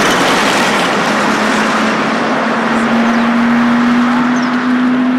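Road traffic noise from cars driving along a street: a steady rush, with a low hum that comes in about a second in and holds.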